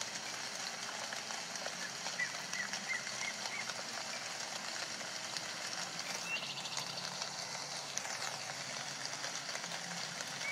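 Steady background hiss with a few faint bird-like chirps: a short run of small chirps about two seconds in, a rising call a little past the middle, and another short call near the end.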